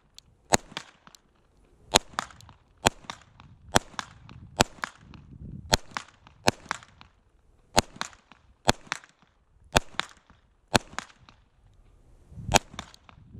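Gen 2 Glock 19 9mm pistol being fired about a dozen times at a steady pace of roughly one shot a second, each shot a sharp crack followed by a brief echo.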